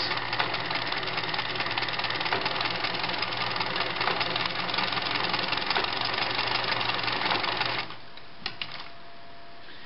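A 1970s New Home model 900 (XL-II) sewing machine stitching at low speed, its motor and needle mechanism running steadily. It stops about eight seconds in, and a few light clicks follow.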